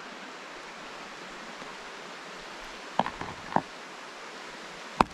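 Steady rush of a nearby stream. A few short clicks of chopsticks against a bowl come about three seconds in, then a single sharp knock on the wooden picnic table near the end.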